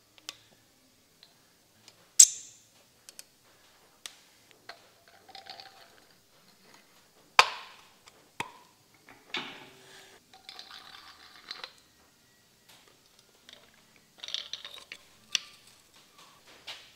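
Metal engine parts clinking and scraping as the main bearing caps are handled and set over the studs onto the crankshaft of an Alfa Romeo 1600 engine block. Scattered sharp clinks, the loudest about two seconds in and again near the middle, between short stretches of light scraping and rattling.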